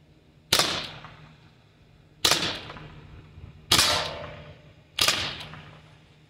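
Modified .68-calibre CO2-powered less-lethal pistol, putting out about 30 joules, fired four times at roughly one-and-a-half-second intervals. Each shot is a very loud sharp crack with a tail that dies away over about a second.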